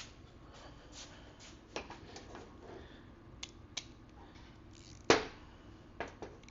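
Hand tools and small metal parts clinking and knocking on a workbench while dirt bike footrest bolts are being worked loose, with one loud clank about five seconds in.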